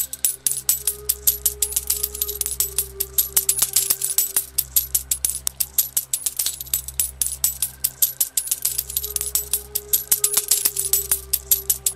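Coins clinking and jingling in a rapid, dense stream of small metallic strikes, several a second, over a soft sustained synth drone with a few long held notes.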